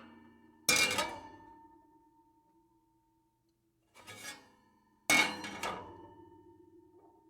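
Metal oven pans clattering as they are slid and set into an oven, twice: two sharp clangs with rattles, each leaving a ringing metallic tone that fades over a couple of seconds, with a softer scrape shortly before the second clang.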